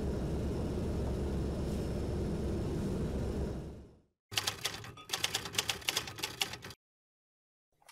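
A steady low rumble, like a car heard from inside through a dashcam, fades out about three and a half seconds in. Then comes a rapid run of typewriter key clacks, several a second, for about two and a half seconds, as a title is typed out letter by letter.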